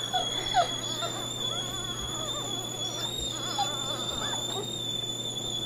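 A stovetop kettle whistles in one steady high tone. Over it come faint, short squeaks and whimpers from 6-day-old Portuguese water dog puppies.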